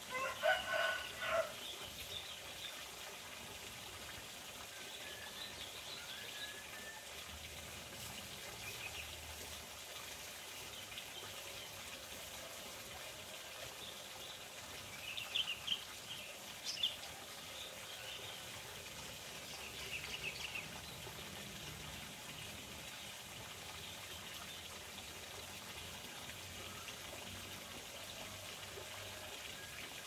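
A rooster crows once right at the start, over the steady rush of running water. Small birds chirp here and there, with short clusters of calls about fifteen and twenty seconds in.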